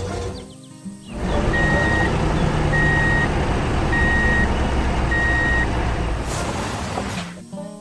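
Reversing alarm on a construction vehicle beeping four times, evenly spaced, over the vehicle's engine running with a low rumble. The rumble starts about a second in and fades out near the end.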